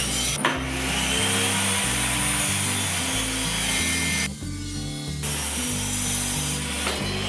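Table saw blade cutting wood, a steady hiss that breaks off for about a second near the middle, over background music with a steady bass line.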